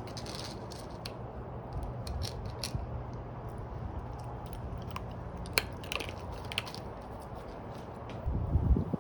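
Nail clippers snipping a dog's toenails: scattered sharp clicks and snips, one crisper than the rest about halfway through. A louder low bumping comes near the end.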